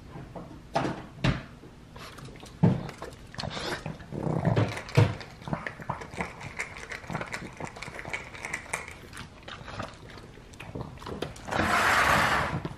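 A pug eating dry kibble from a plastic slow-feeder bowl: irregular crunching and clicks of kibble knocked against the bowl, with snuffling. A loud rush of noise lasting about a second near the end.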